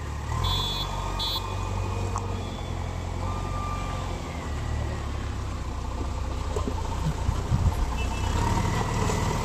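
JCB 3DX backhoe loader's diesel engine running steadily as the machine manoeuvres. Two short high beeps sound about a second in.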